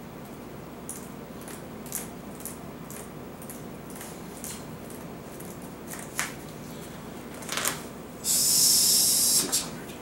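Scattered light clicks and ticks of playing cards being handled and laid on a table. Near the end comes a louder hiss lasting about a second.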